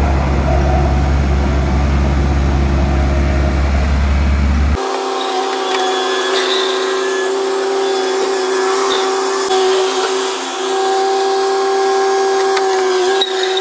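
Skid-steer loader engine running steadily under load as it pushes soil with its bucket to backfill a trench. About five seconds in the sound changes abruptly from a low drone to a steadier, higher-pitched hum.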